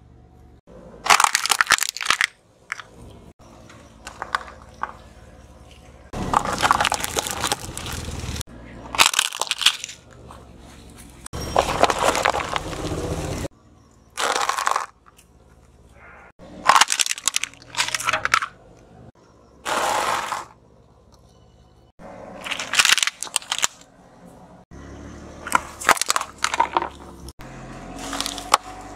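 A car tyre rolling over and crushing crunchy foods such as peanut brittle on asphalt: a series of separate crackling, crunching bursts, some brief and some lasting a second or two, each starting and stopping abruptly.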